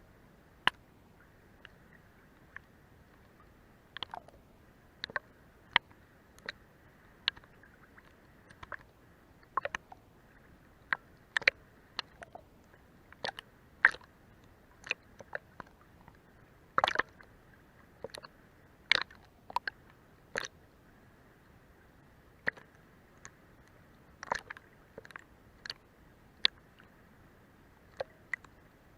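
Sea water lapping against the underside of a boat's hull: irregular sharp little slaps and clicks, one to three a second, over a faint steady hiss.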